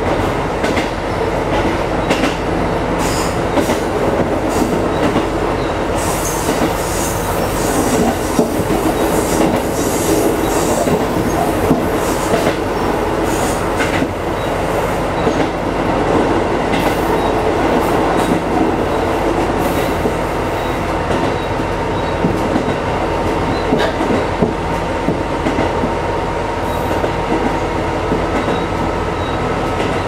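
KiHa 220 series single-car diesel railcar running along the line, heard from the front cab: a steady diesel engine hum under the rolling noise, with wheels clicking over the rail joints and squealing at times on the curves.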